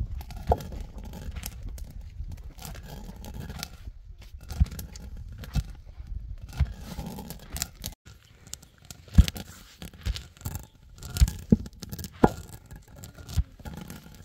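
Hand-turned stone quern grinding wild pistachios: a steady low grinding rumble of stone on stone, broken by irregular sharp clicks and cracks.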